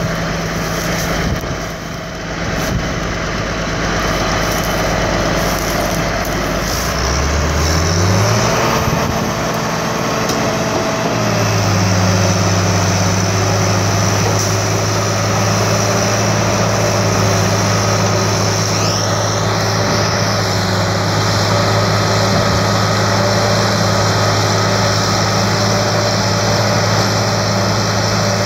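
Heavy diesel engine running during a cable-winch recovery of a tipped track loader. It runs at a low steady speed, revs up over about two seconds around eight seconds in, then holds a higher steady speed. A brief rising whine comes near the middle.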